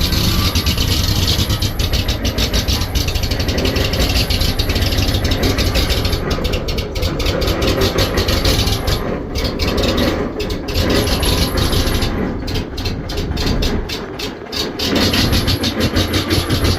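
Oil field compressor's engine idling roughly: a fast, uneven train of firing pulses whose loudness rises and falls, dipping briefly near the end.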